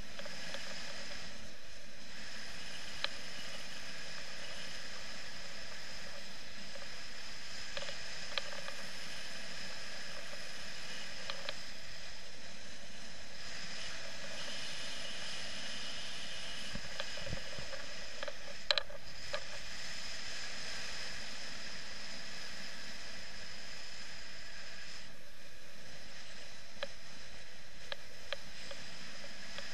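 Steady rush of airflow over a camera carried by a paraglider in flight, with a few faint clicks, the sharpest a little after halfway.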